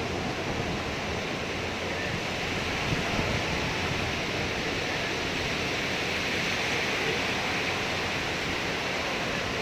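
Sea surf washing on the beach: a steady rushing noise without pauses.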